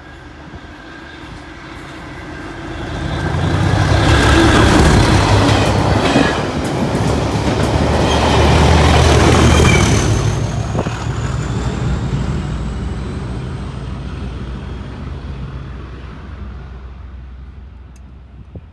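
Colas Rail Class 37 diesel locomotive on a test train passing through a station at speed. Its English Electric V12 engine and the wheels on the rails build up over the first few seconds, are loudest in the middle, then fade away as it recedes.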